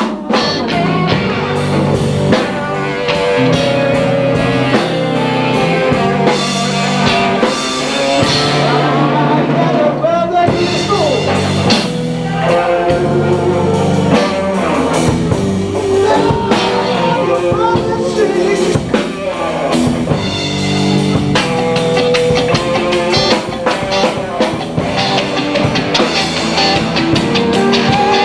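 Live blues-rock band playing: electric guitar, bass and drum kit.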